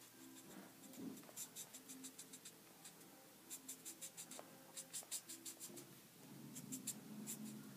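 Faint scratching of a Spectrum Noir marker tip stroking on paper, in several runs of quick short strokes with brief pauses, as the skin is shaded in.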